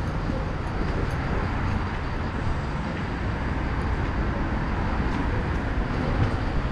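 Steady low rumble of street traffic in a town street, with no distinct events standing out.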